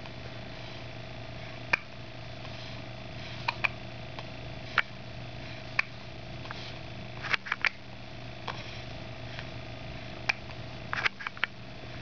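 Newborn baby hiccuping: short, sharp hics every second or two at uneven spacing, with a quick cluster of several about seven seconds in and again near the end.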